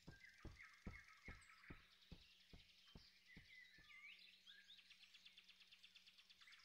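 Near silence: faint cartoon forest ambience with small birds chirping, and a run of soft, evenly spaced ticks, about two a second, that fade away.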